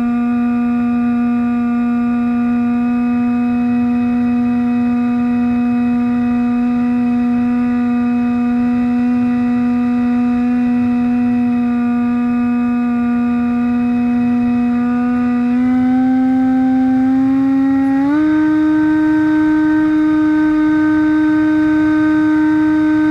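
Electric plane's brushless outrunner motor (Turnigy D2826-6, 2200kV) and 6x5-inch propeller, a steady whine heard from the onboard camera, with a low rush of air underneath. The pitch steps up twice, about two-thirds of the way through and again a few seconds later, as the throttle is raised.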